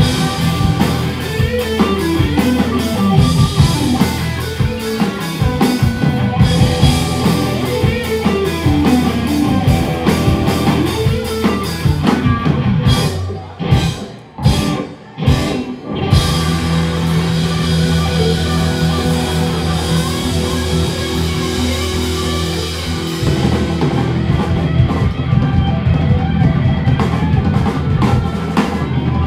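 Live rock band playing, electric guitars over a drum kit, working a repeated falling riff. About halfway through the band drops out in a few short breaks punctuated by single hits, then comes back in and plays on.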